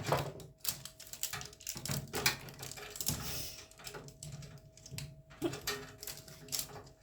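Irregular clicks, taps and light knocks of hands handling a new microwave and its packaging, over a faint steady hum.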